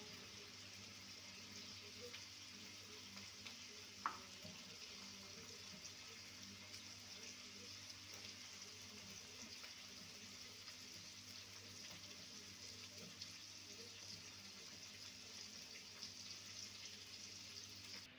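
Near silence: a faint steady hiss and low hum of room tone, with one light click about four seconds in.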